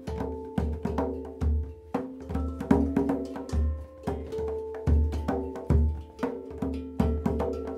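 Handpan music: tuned steel notes struck in a steady rhythm and left ringing, over deep low strikes.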